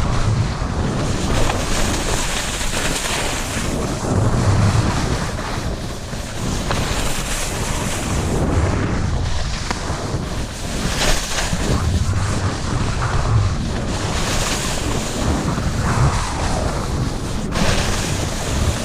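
Wind buffeting the microphone: a steady, loud rushing with a low rumble that swells and fades in gusts.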